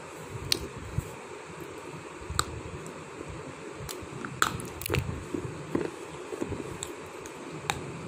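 A person biting and chewing a lump of slate stone: sharp, brittle crunches at irregular intervals over a steady background hiss.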